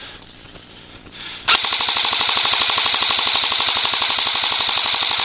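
An airsoft rifle firing on full auto: one long burst of very rapid, even shots, about four seconds long. It starts about a second and a half in and cuts off sharply.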